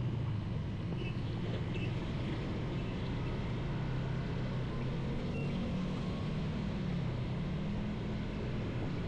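Motorcycle engine running under way, its pitch rising and falling a little with the throttle, over a steady hiss.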